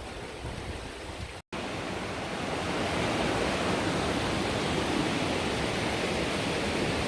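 Steady rushing of a waterfall. It is quieter up to a sudden cut about a second and a half in, then louder and fuller.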